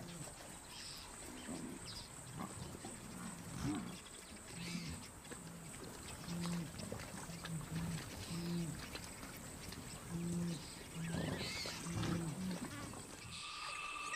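Herd of African buffalo giving short, low grunting calls, repeated every second or so, with some splashing through shallow water.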